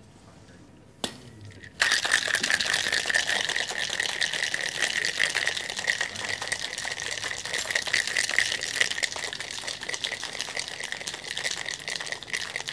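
Ice cubes rattling hard inside a cocktail shaker being shaken, a dense steady rattle that starts about two seconds in and keeps going, with a single sharp knock shortly before it.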